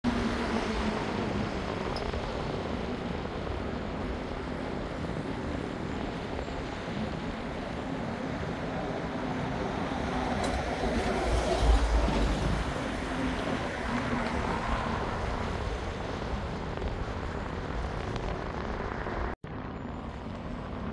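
Steady outdoor ambient noise, a continuous rumble and hiss with a low swell of rumble about halfway through; it cuts out for an instant near the end.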